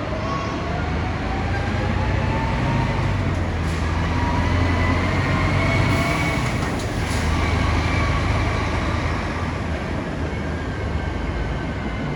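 Scania K440 coach's 13-litre six-cylinder diesel under load as the bus pulls away: a deep rumble with a whine that climbs in pitch. The whine eases about halfway through, then rises again.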